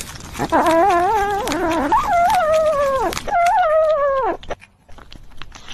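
Domestic cat making long, wavering whining calls while gnawing a chew treat, three drawn-out cries of about a second each. Near the end the calls stop and quieter crunching and clicking of chewing follow.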